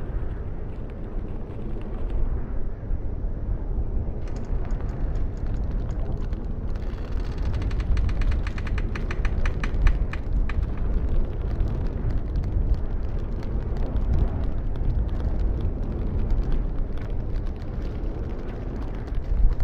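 Strong wind rumbling steadily, with a rapid mechanical clicking rattle that builds from about four seconds in and is strongest for about three seconds from seven seconds in.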